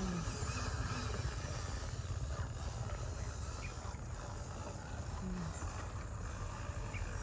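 A vehicle running along a trail: a steady low rumble under a constant hiss, with no sharp knocks.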